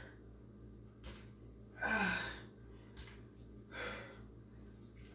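A woman's hard breathing under exertion during dumbbell lunge-and-row reps: sharp exhales about every two seconds. The loudest, about two seconds in, has a little voice in it, like a short grunt.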